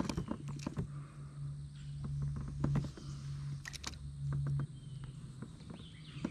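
Scattered light clicks and knocks over a steady low hum, which drops off about two-thirds of the way through.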